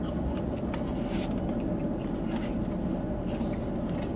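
Steady low hum of a car interior, with faint scrapes and light clicks of a spoon digging in a plastic Blizzard cup.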